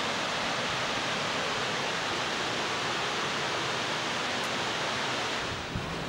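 Waterfall: a steady, even rush of falling water. Near the end it changes to a lower, uneven rush.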